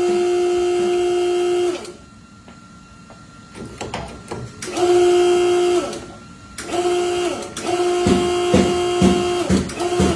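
An electric motor, most likely a power tool's, whirring at a steady pitch and winding down as it is switched off, then started and stopped twice more. In the last couple of seconds, knocks come about twice a second over the whir.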